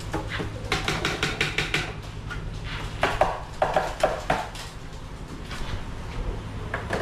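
Pigeons flapping and clattering as they flush out of a wooden loft: a quick run of wing claps about a second in, and more flapping and knocking around three to four seconds in.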